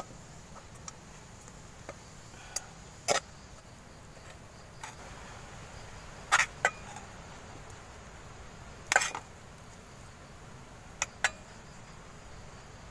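A metal spoon knocking and clinking against an aluminium cooking pot and bowl as cooked rice is scooped out: a handful of sharp, separate clinks a second or more apart, over a faint steady forest background.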